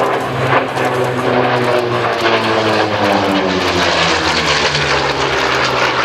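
Chance Vought F4U-4 Corsair's Pratt & Whitney R-2800 18-cylinder radial engine and propeller running loud in a display pass. The droning note slides down in pitch over the first three seconds or so, then holds steady.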